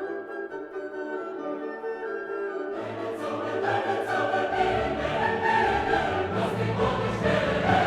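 Background music with a choir singing over orchestral accompaniment, swelling fuller and louder about three seconds in.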